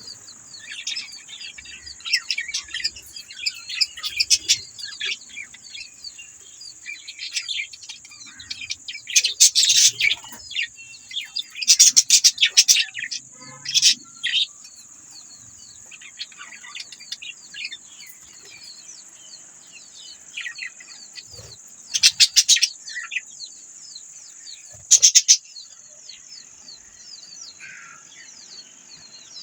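A group of budgerigars chattering with a dense run of quick chirps and warbles, with several louder, sharper calls breaking out at intervals. A steady high-pitched hiss runs underneath.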